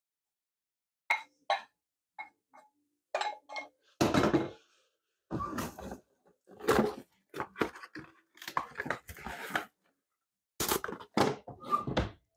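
A wooden spoon taps several times against the rim of a glass mixing bowl, short clicks with a faint ring, knocking off crumbly crust dough. From about four seconds in comes a run of louder thumps and rustling handling noises.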